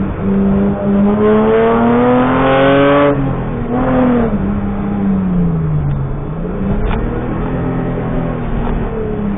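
BMW E30 rally car's engine heard from inside the cabin, revs climbing for about three seconds and then dropping sharply, with a brief blip about four seconds in. The revs then fall away, rise and hold, and ease off again near the end, with a single short click about seven seconds in.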